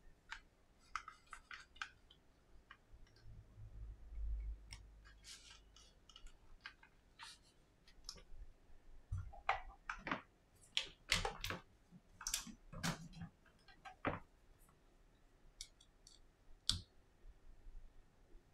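Scattered sharp clicks and soft handling noise as the iPhone XS's replacement screen is squeezed and pressed down into its frame, with a cluster of louder clicks about nine to fourteen seconds in.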